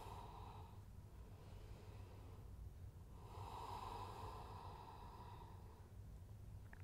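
Faint, slow breathing: one long breath fading out under a second in, and another from about three to six seconds, over a low steady room hum.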